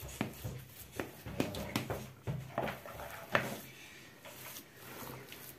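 A metal spoon stirring and scraping a thick cottage-cheese and cheese filling in a plastic bowl: irregular short clicks and scrapes about every half second, over a faint steady low hum.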